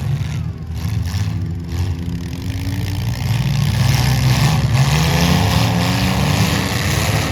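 Demolition derby cars' engines running and revving, the engine pitch climbing about four to six seconds in.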